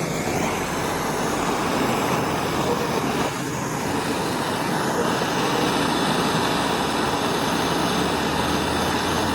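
MAP-gas hand torch burning steadily with a continuous rushing hiss of the flame, heating the fluxed cable end for soldering.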